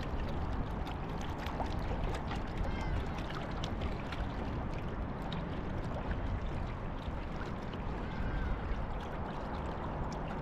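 Water splashing and rushing past a kick boat pushed by its trolling motor, opened up slightly, with wind buffeting the microphone.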